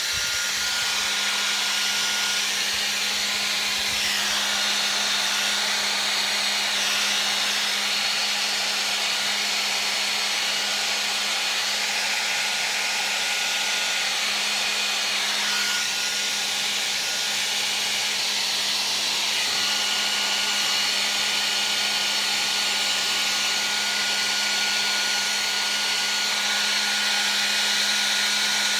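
Handheld hair dryer running steadily, blowing wet acrylic paint across a canvas: an even rush of air over a steady low motor hum and a faint high whine.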